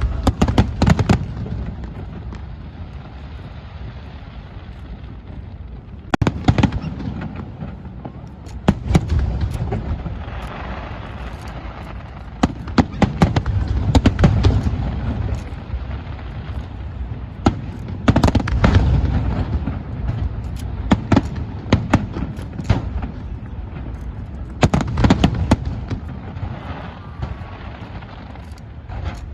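Aerial fireworks bursting: volleys of sharp bangs every few seconds, with a deep rolling rumble of booms between them.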